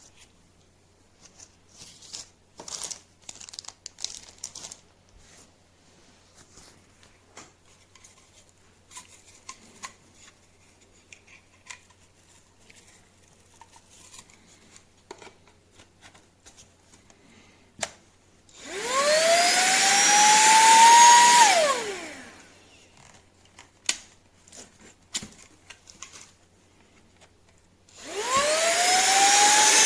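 Cordless handheld vacuum cleaner's motor switched on twice. Its whine rises as it spins up, runs for about three seconds and falls away as it spins down, then starts again near the end and keeps running. Before that there are only light clicks and handling noises.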